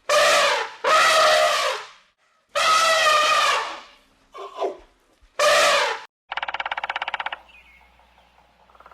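Four loud, drawn-out animal calls, each about a second long with a wavering pitch, followed about six seconds in by a short, rapid buzzing rattle.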